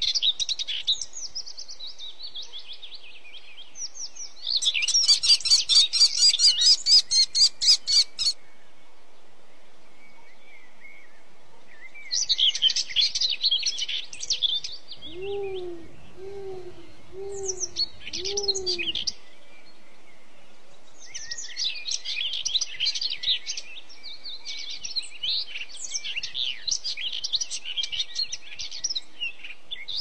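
Songbirds chirping and trilling, with a fast, loud trill from about four to eight seconds in. Between about fifteen and nineteen seconds in, another bird gives four low hooting notes, about one a second.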